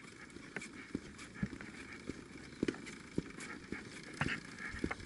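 Footsteps on paving, short knocks about two a second, over a faint steady background hiss.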